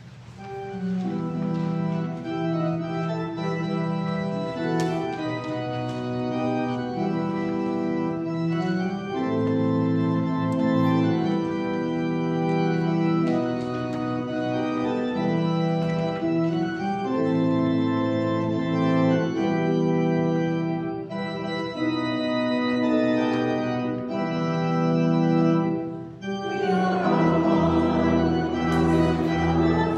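Church organ playing a hymn tune in slow, sustained chords that change every second or two; about 27 seconds in the sound grows fuller.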